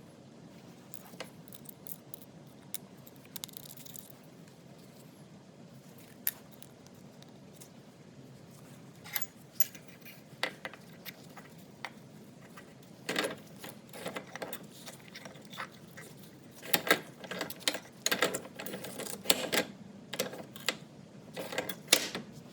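Light metallic clicks and clinks of small parts being handled, scattered at first and then coming in quick clusters from about halfway through.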